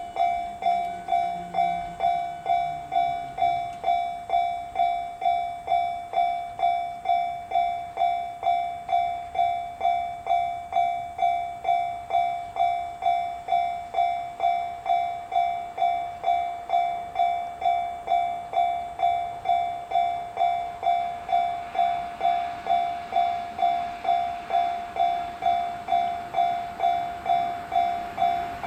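Japanese level-crossing warning bell dinging at an even pace, about two strikes a second. Under it, the approaching Series 413 electric multiple unit's running noise grows over the last several seconds.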